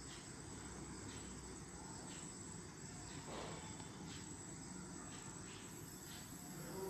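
Faint sounds of a small kitchen knife cutting into a peeled cucumber held in the hand: a few quiet, short cutting scrapes over low background hiss.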